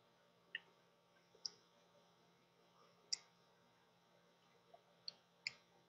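Near silence broken by five faint, scattered clicks of a stylus tapping on a tablet screen during handwriting.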